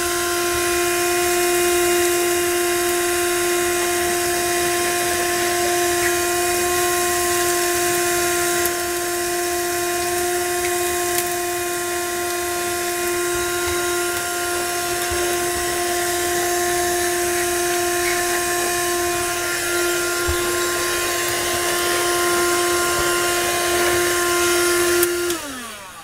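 12-volt wet and dry vacuum cleaner running at a steady pitch, a motor whine over an airy rush of suction. About a second before the end it is switched off and the whine falls in pitch as the motor spins down.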